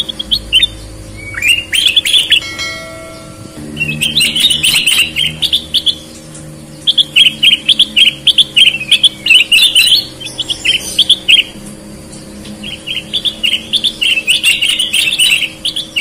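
Ruby-throated bulbuls (kutilang emas) singing: rapid, chirpy warbled phrases in four spells with short pauses between them.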